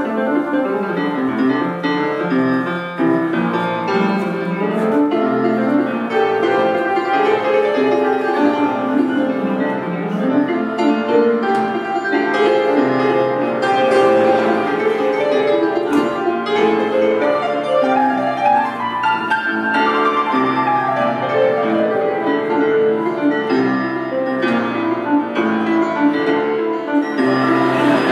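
Grand piano played live: a continuous instrumental passage of busy notes and chords over moving bass notes.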